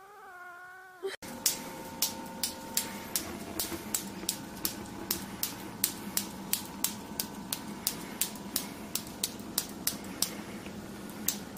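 A cat meows once, the call bending in pitch and cut off about a second in. Then comes a steady run of sharp clicks, about three a second, over a low hum.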